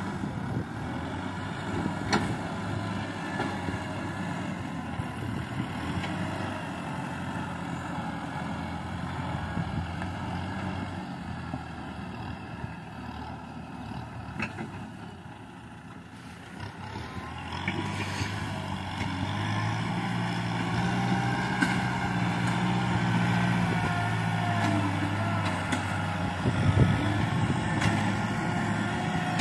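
Kubota M6040 tractor's diesel engine running under load as it pushes soil with its front blade and drags a disc harrow. It fades as the tractor moves off about halfway through, then grows louder as it comes back close.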